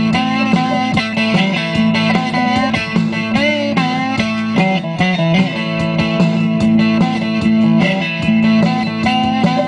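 Guitar played solo: a picked line of single notes over a repeatedly sounded low bass note, with several notes sliding in pitch.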